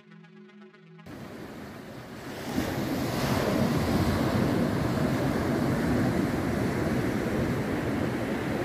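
Waves breaking and washing onto a sand beach, a steady rush that swells up about two and a half seconds in, with wind on the microphone. Quiet music cuts off about a second in, just before the surf comes in.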